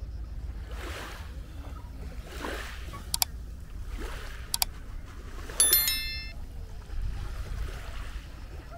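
Small sea waves washing on the beach in repeated swells, over a low wind rumble on the microphone. Two pairs of sharp clicks come near the middle, and a short metallic ring, the loudest sound, follows just after.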